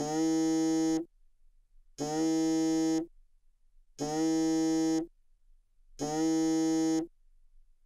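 Smartphone ringing for an incoming video call: a one-second electronic ring tone repeated every two seconds, four times.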